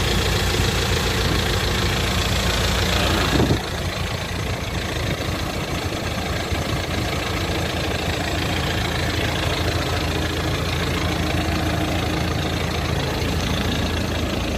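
Freshly overhauled Eicher E483 CNG engine idling steadily, running as it should after the rebuild. About three and a half seconds in there is a brief click and the sound drops a little in level, then it idles on evenly.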